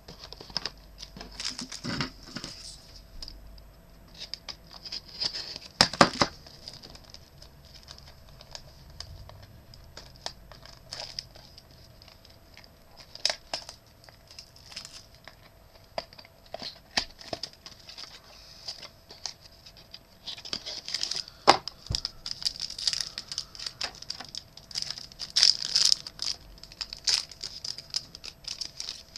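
Trading card pack wrappers being torn open and crinkled, with the cards rustling and clicking as they are handled. The handling noises come and go, with louder flurries near the start, around six seconds in, and through the last third.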